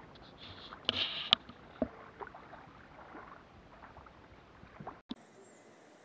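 Quiet riverside ambience: river water lapping at a rocky shore, with a few scattered sharp clicks and a brief high chirp about a second in. The background changes abruptly about five seconds in.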